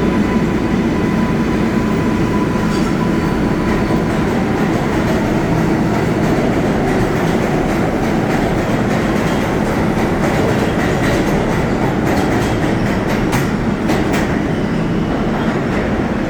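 New York City Subway 7 train running at the station, a steady loud rumble with a run of wheel clicks over the rail joints a few seconds before the end.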